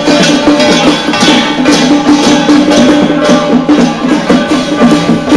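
Loud traditional Taiwanese temple festival music: a wavering pitched melody over a steady beat of drums and clashing percussion.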